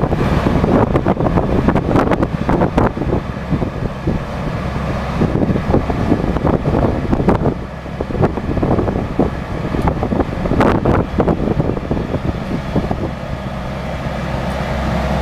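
A heavy machine's engine running steadily, with irregular clattering and knocks over it.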